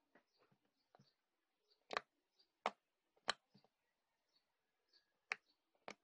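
Fluffy slime being pressed and kneaded by hand, giving a few sharp, separate clicks and pops, about five of them, with very little sound between them.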